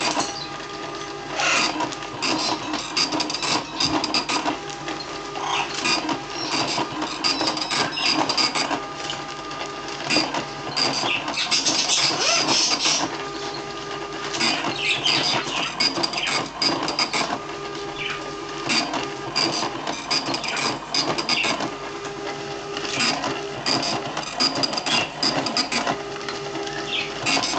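OKI Microline dot-matrix printer printing on continuous tractor-feed paper: the print head chatters across the page in repeated passes of a second or two, with short breaks between them.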